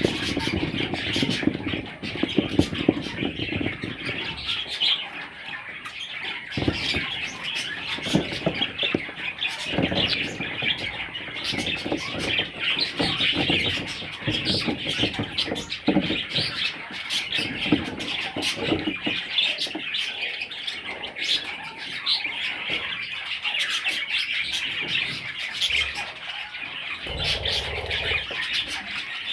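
Budgerigar chicks chirping and squawking continuously in a dense, unbroken chatter, with scattered clicks and bumps of movement.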